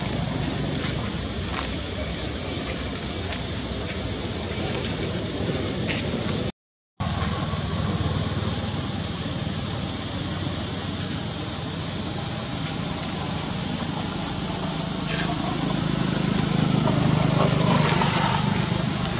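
Dense chorus of insects giving a steady, high-pitched buzz that cuts out for a moment about a third of the way in.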